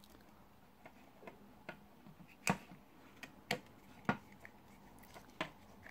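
Light, irregular clicks and taps of the plastic housing of a Simtoo Dragonfly Pro camera gimbal being handled and worked down over its clips, with the two clearest clicks about two and a half and three and a half seconds in.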